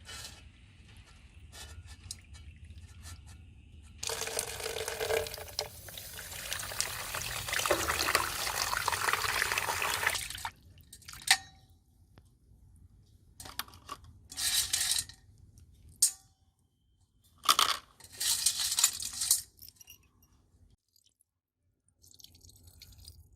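Water running from a tap for about six seconds, then in several short spurts, with small knocks and clinks between them.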